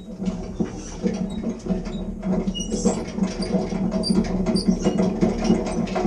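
Hand-cranked cable ferry's winch being turned: gears and cable clicking and rattling rapidly over a steady low hum as the ferry is wound across the canal.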